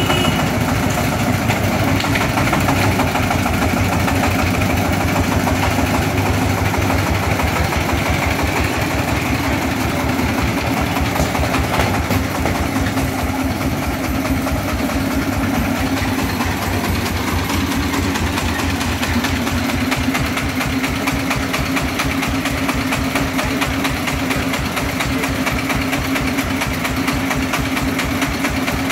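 Single-cylinder diesel engine of a công nông three-wheeled dump truck running steadily with a rapid, even chugging as the truck is driven slowly into position to tip its load.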